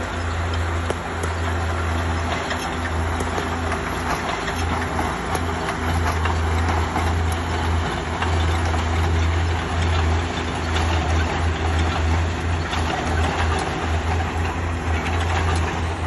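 Bulldozer's diesel engine running steadily with a strong low hum, over a constant haze of mechanical noise with scattered clicks.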